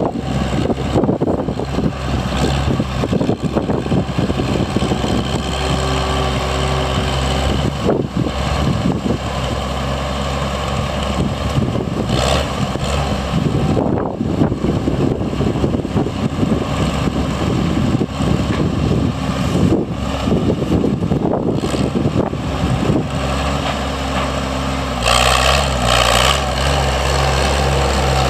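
Oliver 77 tractor's six-cylinder gasoline engine idling steadily, briefly louder for a couple of seconds near the end.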